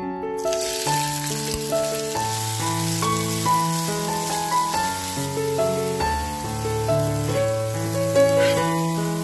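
Grated ginger and green onion sizzling in hot oil in a frying pan, starting just as they are tipped in and going on while stirred, over background piano music.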